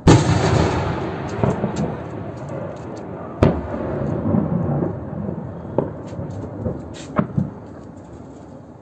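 A loud explosion goes off right at the start and rumbles away over about three seconds, followed by a sharp bang and then several shorter bangs later on: blasts during a drone attack on a military airfield.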